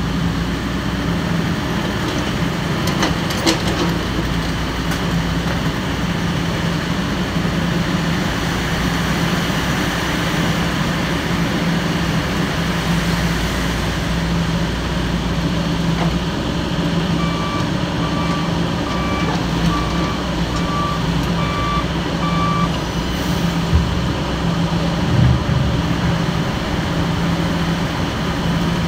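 Heavy diesel engine of construction equipment running steadily, with a reversing alarm beeping about eight times in an even run past the middle.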